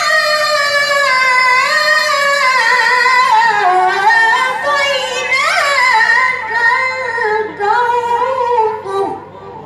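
A young boy's melodic Quran recitation into a microphone: one long, drawn-out phrase with wavering ornamental turns, sliding gradually lower in pitch and ending about nine seconds in.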